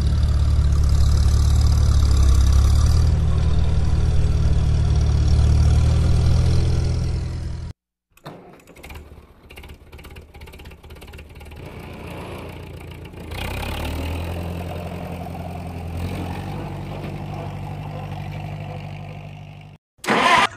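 Tractor engine sound running steadily, heavy in the low end, in separate clips. The first clip stops abruptly about eight seconds in. A quieter stretch with scattered clicks follows, then the engine sound returns about halfway through and cuts off just before the end.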